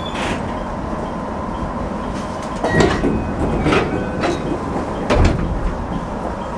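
Stationary 205-series electric train cab: a steady hum of onboard equipment with a faint high tone, broken by a few knocks and clunks about three, four and five seconds in, the last the loudest.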